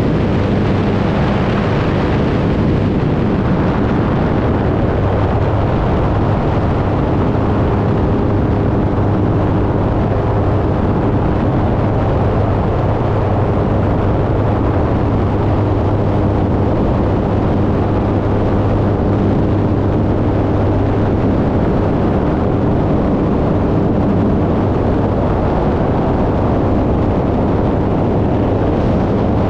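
Light airplane's engine and propeller droning steadily in flight, with air noise, heard from inside the cockpit. The engine is running high in the mountains, where it has lost much of its power.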